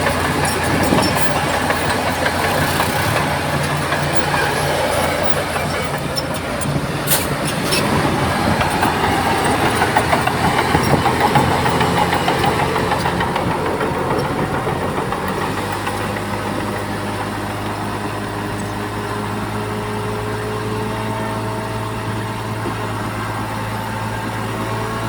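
Crawler bulldozer's diesel engine running while working soil, with a few sharp metallic clanks about seven seconds in. About fifteen seconds in, the engine settles into a steady, even drone.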